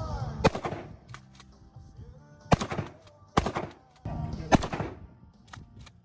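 Four loud gunshots at uneven spacing, each a sharp crack with a short echo, with a few fainter cracks between them.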